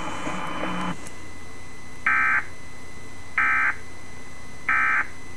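Emergency Alert System end-of-message signal: three short, identical bursts of warbling digital data tones, evenly spaced about a second and a half apart, marking the end of the Amber Alert broadcast.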